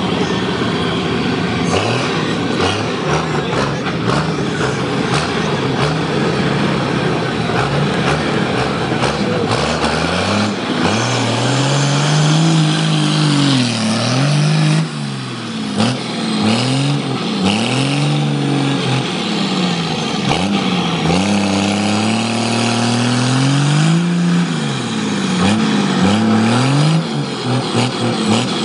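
Cummins diesel engine of a mega truck working hard in deep mud. About ten seconds in it starts revving up and down over and over, about once a second, as the truck rocks and churns in the mud pit.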